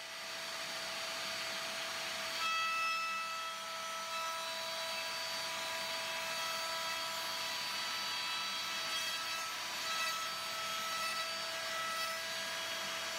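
Table-mounted router running at speed, its straight bit cutting along the edge of a timber board as it is fed past the fence: a steady whine over the hiss of the cut.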